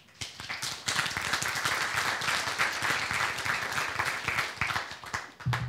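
Audience applauding, swelling within the first second and stopping abruptly near the end.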